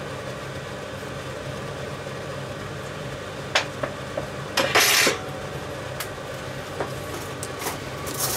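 Clicks and clinks of cookware at an induction hob, with one short clatter about five seconds in as the loudest moment, over a steady low hum.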